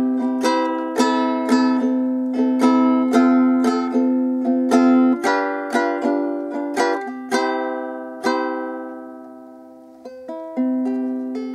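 Concert-size V-bodied ukulele strummed unplugged through the C chord circle, about two strums a second with the chord changing every few strums. Near the end one chord is left to ring and fade before the strumming starts again. The ukulele was tuned in a hurry and is not quite in tune, as the owner admits.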